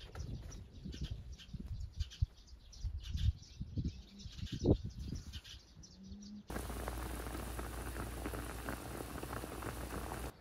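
Small birds chirping over light rustling and low knocks. About six and a half seconds in, this cuts suddenly to a pot of fish pieces boiling hard: a steady bubbling.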